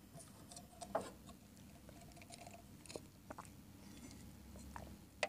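Faint sounds of a drink can being picked up and sipped from: small mouth noises and a few short clicks and taps, the sharpest about a second in.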